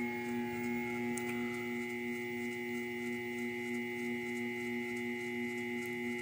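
Grizzly G0704 CNC mill running with its spindle turning a concentric indicator: a steady electrical whine of several held tones, with a few faint ticks.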